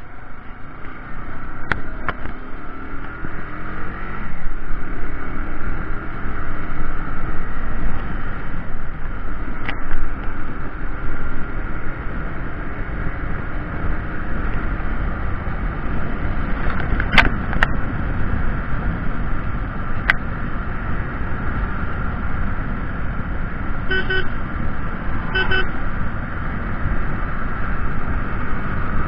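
Motorcycle ride heard from an action camera on the bike: the engine runs under a heavy rush of wind on the microphone, its note rising over the first few seconds. A few sharp clicks come in the middle, and a horn gives two short toots near the end.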